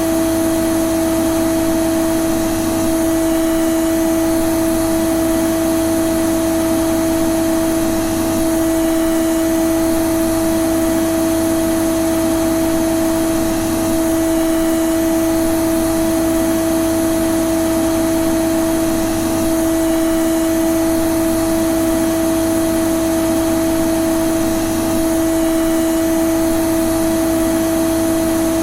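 Vacuum cleaner (hoover) motor running steadily: a continuous whine over a rushing hum, unchanging throughout.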